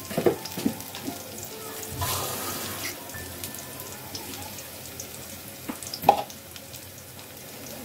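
Sliced onions and green chillies sizzling steadily in hot oil in a kadai, with a few light clicks and one sharp knock about six seconds in.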